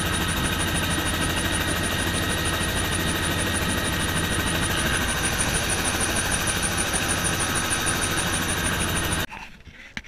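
Bell helicopter running steadily, heard from inside the cabin: engine whine and rotor with a fast regular pulse. It cuts off suddenly near the end, leaving faint background.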